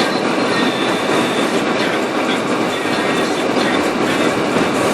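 Steady rumbling road noise inside the cabin of a 1998 Dodge Durango driving in four-wheel drive on a snow-covered road, with the tyres and body rattling continuously.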